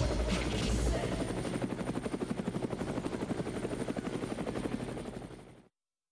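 Helicopter rotor chop: a fast, even pulsing that slowly fades and then cuts off abruptly shortly before the end.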